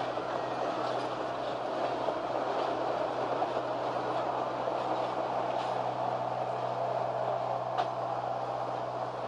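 Passenger train running steadily along the track: a continuous rolling rumble with a constant low hum and a few faint clicks, one sharper click near the end.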